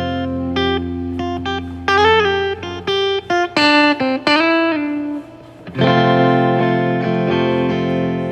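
Guitar music: single plucked notes, some bent upward in pitch, over a held low note. Near the end a fuller chord rings out.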